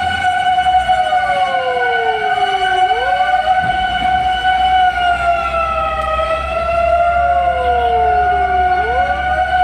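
Fire engine sirens: one holds a steady high tone while a second slides slowly down in pitch and snaps quickly back up, twice. A low rumble runs underneath.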